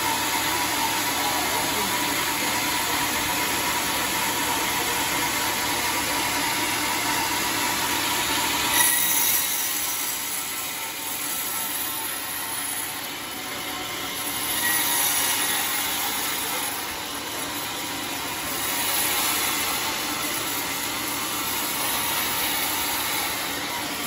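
Sawmill band saw cutting lengthwise through a large hollow teak log, a steady rushing machine noise. A single sharp knock comes about nine seconds in; after it the noise swells and dips as the cut goes on.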